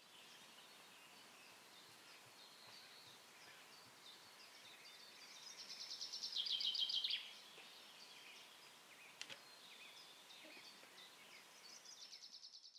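Small birds singing against a faint outdoor hiss. Scattered short chirps are topped about halfway by a fast trill of quickly repeated notes that grows louder and then breaks off, and another trill starts near the end. A single short click sounds a little after the first trill.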